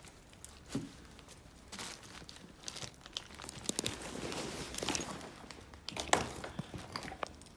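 Irregular rustling, crinkling and scuffing with scattered sharp clicks, as of a person moving about and brushing against things close to the microphone, busier in the second half.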